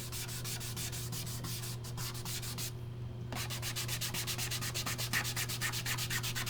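Leather dye being rubbed onto a bare wood test piece with an applicator in quick back-and-forth strokes, about five a second, with a short pause about halfway through. A steady low hum runs underneath.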